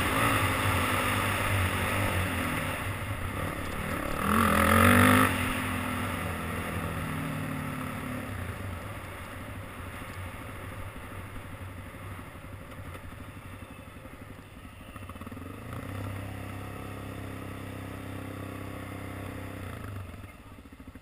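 Dirt bike engine running under way on a dirt trail, with a short burst of throttle about four seconds in. It then eases off to lower revs and gets gradually quieter as the bike slows, dropping off again near the end.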